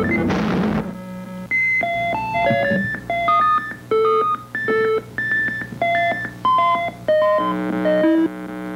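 Electronic synthesizer music. After a dense, noisy first second, single synth notes hop up and down in pitch, about two a second, over a steady low drone, with a buzzier chord-like tone near the end.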